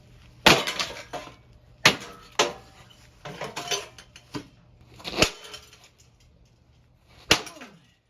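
A Harbor Breeze Springfield ceiling fan being smashed. About six heavy blows land at uneven intervals, each with a metallic clank and the rattle of loose parts.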